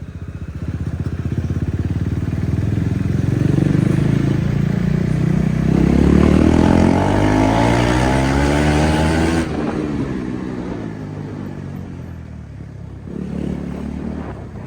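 KTM Duke 390's single-cylinder engine pulling under acceleration on the move, its pitch rising steadily for several seconds, then dropping abruptly about two-thirds of the way through and picking up again near the end.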